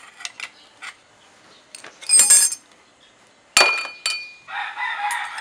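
Steel screwdriver clinking against a scooter's steel secondary sliding sheave: a short clatter about two seconds in, then a sharp strike that rings on for nearly a second. A rooster starts crowing near the end.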